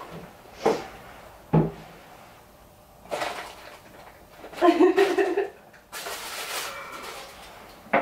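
Sharp knocks and clunks of a door or cupboard, twice in the first two seconds and once more near the end, with a short burst of a person's voice around the middle.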